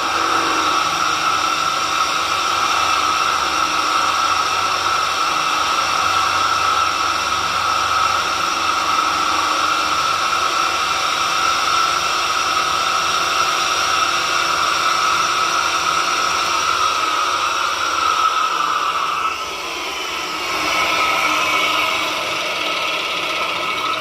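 Electric drill motor running steadily in a homemade horizontal drilling rig: a steady whine over hiss. About nineteen seconds in the sound dips briefly, then turns harsher and higher.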